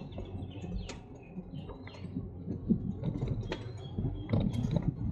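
A bicycle being ridden, ticking and rattling in irregular small clicks over a low rumble.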